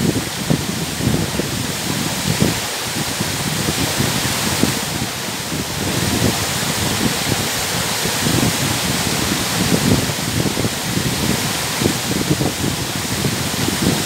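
Tall waterfall cascading down a steep rock face onto boulders: a steady, loud rushing hiss of falling water with uneven low rumbling underneath.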